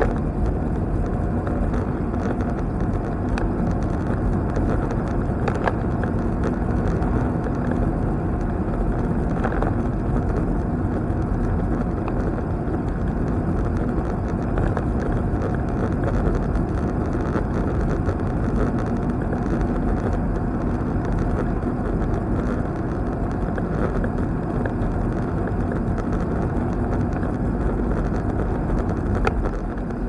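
A car driving at steady speed, heard from inside the cabin: a continuous low rumble of tyres on the road and engine noise.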